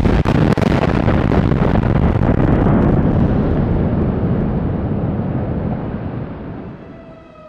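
Reinforced-concrete power-station cooling towers collapsing in a demolition blowdown: a heavy continuous rumble with many cracks of breaking structure, dying away over the last few seconds.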